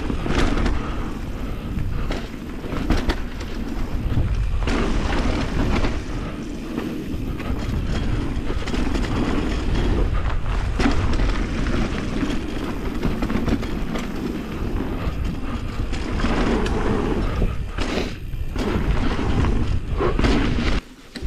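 Mountain bike descending a dirt freeride trail, heard from a camera riding along: a steady rumble of wind and tyres on the ground, broken by frequent knocks and thuds from bumps and landings. It cuts off suddenly near the end.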